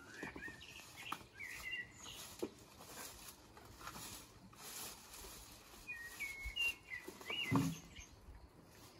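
Birds chirping in short, gliding calls, in a cluster near the start and another about six to seven seconds in, over the rustling and brushing of dense shrubs as someone pushes through them on foot. A louder brush comes near the end.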